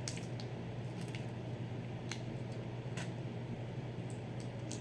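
Faint mouth smacks and clicks of someone chewing boiled shrimp and crawfish, about one a second at irregular intervals, over a steady low hum.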